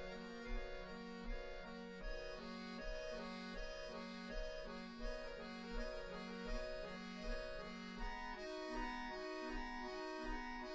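Two accordions playing a fast, repeating figure of chords over a steady low pulse; about eight seconds in, the upper part moves up into higher notes.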